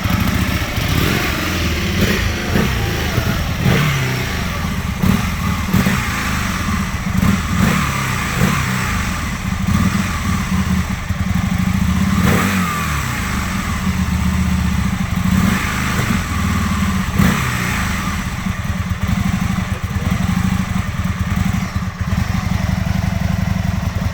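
2001 Aprilia Futura's 998 cc V-twin engine running unevenly and struggling to hold idle. Its revs rise and fall several times.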